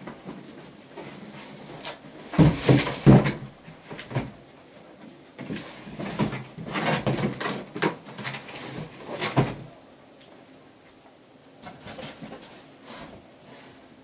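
Cardboard boxes being handled: an inner box scraped and slid out of an outer shipping box, with rustling and knocks. The sound is loudest about two to three seconds in and again from about six to nine seconds, then quieter.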